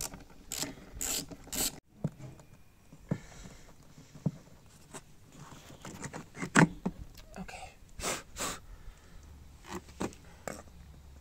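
Plastic BMW E46 air box being handled while its small Phillips screws are undone. Scattered clicks and knocks of plastic and metal, with brief scraping as the housing is turned over.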